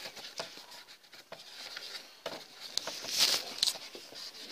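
Paper napkin rubbing and scraping inside the plastic lower air filter box of an Opel Astra G, with small clicks of the hand against the plastic walls. The rubbing grows louder in a couple of quick strokes about three seconds in.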